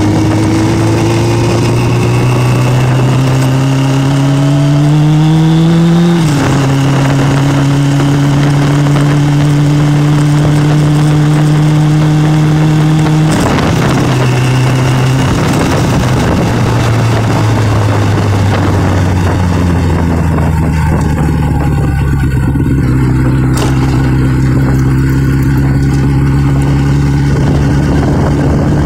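Motorcycle engine running under way: its pitch climbs as it accelerates, drops at an upshift about six seconds in, then holds steady, with another drop around halfway before settling again. A steady rush of wind on the microphone runs underneath.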